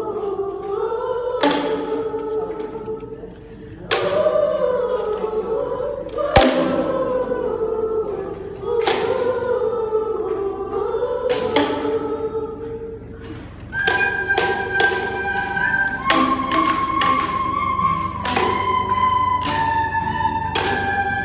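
Children singing in unison, with a boomwhacker tube knocked on the floor every couple of seconds. About two-thirds of the way in, the singing gives way to recorders playing the tune in steady held notes, over quicker taps of the boomwhackers.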